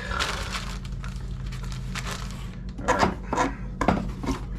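Parts and packaging being handled and put back in a box: rustling and rubbing, with a few sharp knocks about three seconds in, over a steady low hum.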